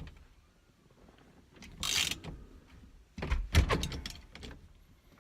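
Socket wrench turning the center bolt of a harmonic balancer puller that is drawing a Fox-body Mustang's steering wheel off its shaft: scattered metal clicks and scrapes, with the loudest cluster of knocks about three and a half seconds in.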